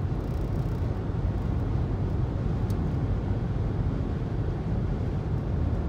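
Car driving at highway speed, heard from inside the cabin: a steady low rumble of tyres and engine.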